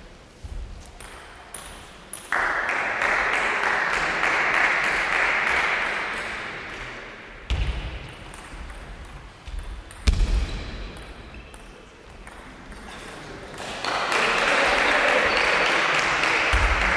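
Table tennis rallies: a celluloid ball clicking sharply off bats and the table, again and again. Two stretches of loud, even rushing noise start about two seconds in and about fourteen seconds in, and they are louder than the clicks.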